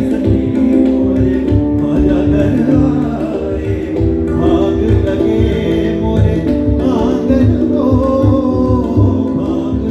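Live Sufi song: a male vocalist singing with tabla and keyboard accompaniment, the tabla's low bass drum strokes keeping a steady rhythm under held keyboard chords.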